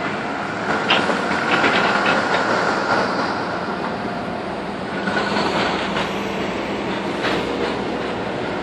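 Caterpillar 315C hydraulic excavator running while its demolition claw tears into a building, with a steady whine for the first few seconds and repeated cracks and clatter of breaking wooden framing and falling debris.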